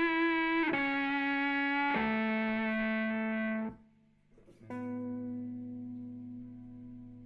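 Distorted electric guitar playing long held notes that change pitch twice and stop about three and a half seconds in. After a short pause, one more note rings out and slowly fades.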